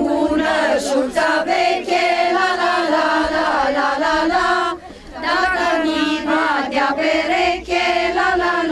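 A group of women singing a Maramureș folk song together, holding long notes, with a brief break for breath about five seconds in.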